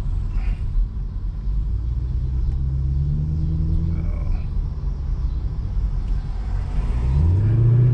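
2010 Chevrolet Camaro SS's 6.2-litre V8 running while driving, a steady low rumble; its pitch climbs as it accelerates about two to three seconds in, and climbs again more sharply near the end.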